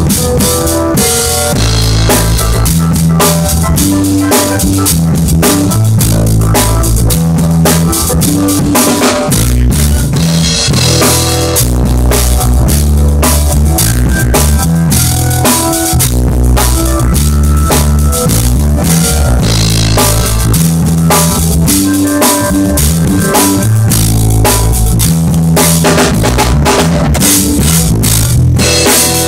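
Drum kit played in a steady groove, with bass drum and snare strikes, along with music that carries a bass line and guitar.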